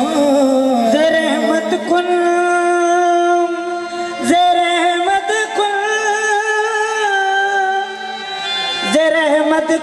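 Qawwali: a male lead singer holding long, wavering notes without words over harmonium accompaniment. A new sung phrase comes in near the end.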